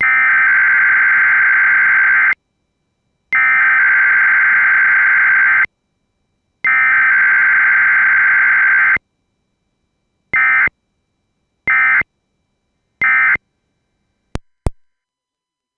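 Emergency Alert System SAME data tones: three long bursts of warbling two-tone digital header data, each a little over two seconds and about a second apart. These are followed by three short end-of-message bursts, then two brief clicks near the end.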